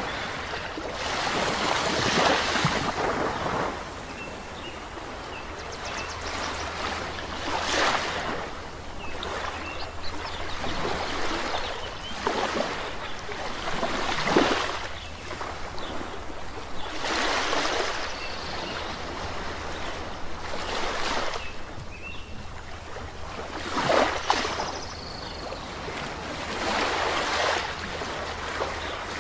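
Sea waves breaking on a shore, each surge swelling and falling away every few seconds, with short, faint bird chirps between the waves.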